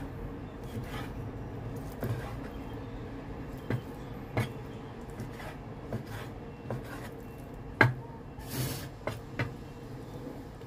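Cleaver chopping chicken thigh into chunks on a wooden cutting board: irregular single knocks of the blade striking the board, the sharpest about eight seconds in, followed by a brief scrape.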